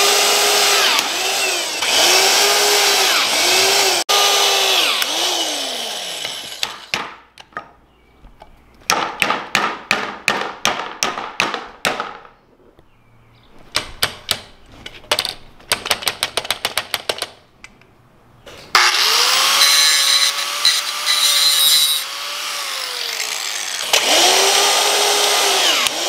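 Corded electric drill driving the small bolts of a plastic Darwin's Grip handle clamp. The motor whines up and down in short trigger bursts, with two spells of rapid clicking in the middle. Power-driving these bolts is what snaps them.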